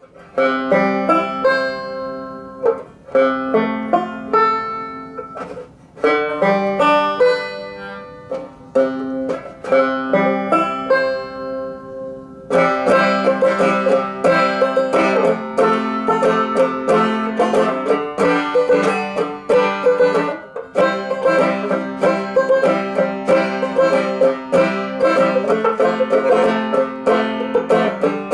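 Vintage banjo being played: a few short plucked phrases with brief pauses between them, then from about twelve seconds in a continuous run of fast picked notes.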